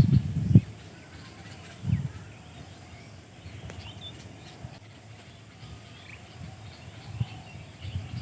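Outdoor ambience with faint, scattered bird chirps, broken by short low thumps on the microphone near the start, about two seconds in and near the end.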